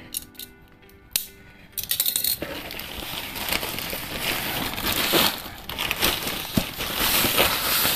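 Plastic courier mailer bag being cut open and pulled off a cardboard box. There are a few light clicks at first, then dense crinkling and rustling of the plastic from about two seconds in.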